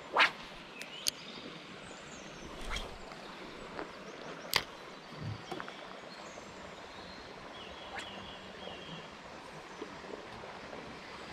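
A few sharp clicks and knocks from handling a spinning rod and reel, the loudest soon after the start and about halfway through, over a steady outdoor background hiss.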